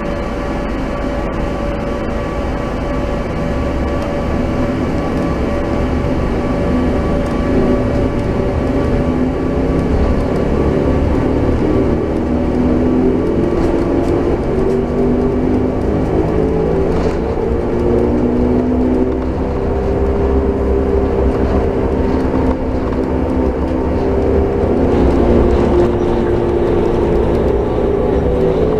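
Kuala Lumpur Monorail train running along its elevated guideway, heard from inside the front of the car: a steady running noise with a whine that rises and falls in pitch as the train's speed changes.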